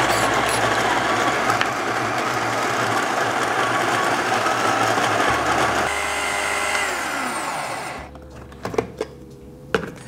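WPM Welhome Pro ZD-10T electric conical burr coffee grinder grinding a dose of beans with a loud, steady whir. About six seconds in the motor switches off and spins down with a falling whine. A few light knocks follow near the end.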